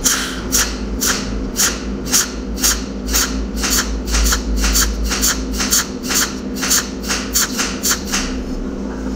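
Cold welding machine's pulsed tungsten arc zapping in short, sharp, evenly spaced pulses, about three a second, as it lays weld spots on a small steel gear. The pulses stop about eight seconds in. A steady electrical hum runs underneath.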